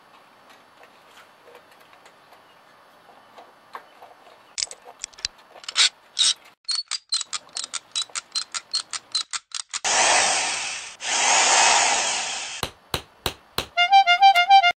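Ratchet wrench clicking in short strokes, starting about four seconds in and settling to about four clicks a second. Two longer rasping runs of a second or two each follow, then a quick stutter of clicks near the end.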